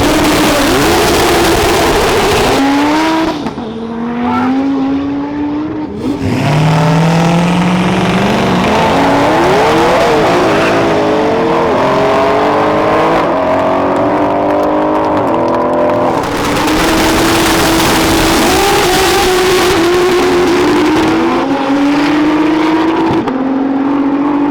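Race cars' engines revving hard; about six seconds in one launches and accelerates through several gears, its pitch climbing and dropping back at each upshift, with high-revving engine noise continuing afterwards.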